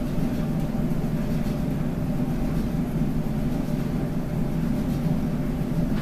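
Coin-operated clothes dryer running with a steady rumble, the abnormal noise that the tenant reports and the service techs say they cannot find.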